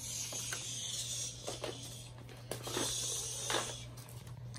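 A child making breathy hissing sounds with her mouth, twice, in pretend play with the dolls and toy helicopter, over a steady low hum.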